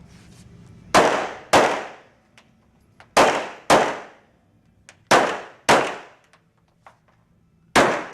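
Handgun shots fired in quick pairs, two shots about half a second apart, four pairs roughly two seconds apart, each shot trailing off in a short echo.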